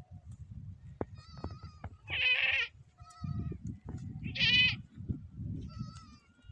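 A goat bleating twice, two loud calls about two and four and a half seconds in, each lasting about half a second, with fainter calls between them and low noise underneath.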